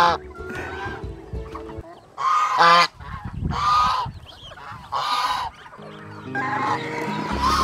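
Domestic white goose honking loudly in several separate calls, each about half a second to a second long.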